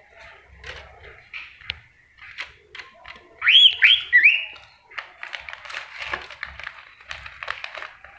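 A bird calling: three loud whistled notes that sweep up and down, in quick succession about three and a half seconds in, among scattered short chips and ticks.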